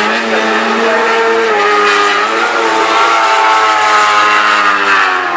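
Jet sprint boat's turbocharged four-rotor rotary engine running hard at high revs, its note rising and falling as the throttle is worked through the course.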